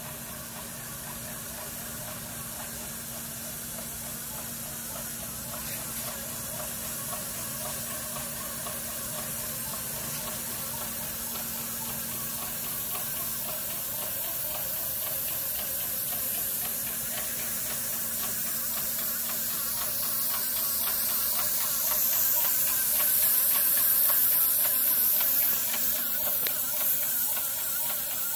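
Walk-behind airless line-striping paint sprayer running, a steady hum with a hiss of paint spray, growing louder as it comes closer.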